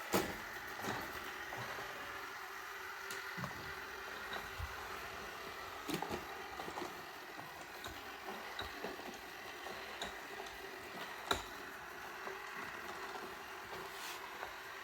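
Roomba robot vacuum running with a steady motor and brush hum, with a sharp knock or click now and then, the loudest right at the start, about six seconds in and about eleven seconds in.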